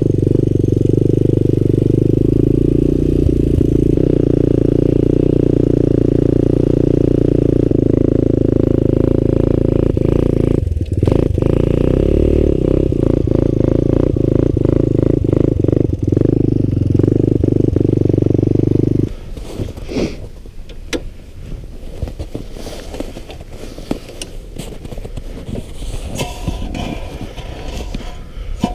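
Small snowmobile engine running at a steady speed while riding, then cutting off abruptly about two-thirds of the way through. Quieter scraping and clattering follows.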